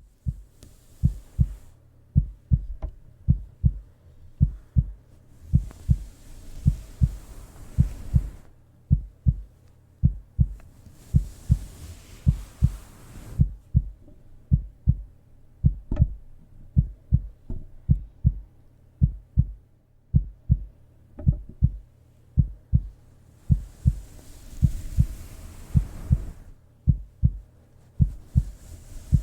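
Human heartbeat thumping in steady lub-dub pairs, low and regular, roughly one beat a second. Stretches of soft hiss come and go a few times.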